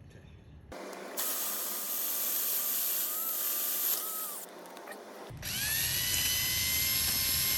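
Power drill with a carbide-tipped bit grinding into ceramic in two runs: one starting about a second in and stopping about halfway, then a second run whose motor whine rises as it spins up.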